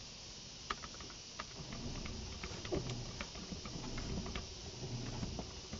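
Faint, sparse keyboard clicks, a few keys at a time, from a chat message being typed slowly, over low muffled room sounds.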